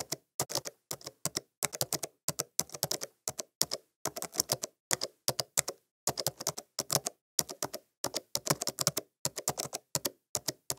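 Typing on a laptop keyboard: quick runs of sharp key clicks, a few at a time, with short pauses between them.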